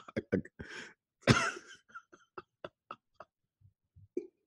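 A person coughing and clearing the throat: a quick string of short coughs, a louder cough about a second in, then fainter short catches trailing off.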